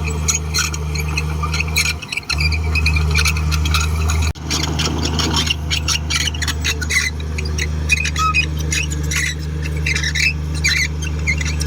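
Komatsu D58 bulldozer's diesel engine running steadily, with many short high-pitched squeals and scrapes over it. The engine sound dips briefly twice in the first half.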